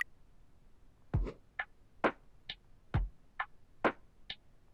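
Sparse drum beat: a low kick about once a second, with a higher, clicky hit falling halfway between each pair of kicks.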